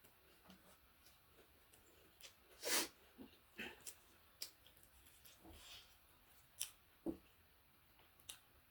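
Quiet mouth sounds of someone eating a meal of meat: chewing and soft smacks with scattered small clicks, and one louder rush of noise a little under three seconds in.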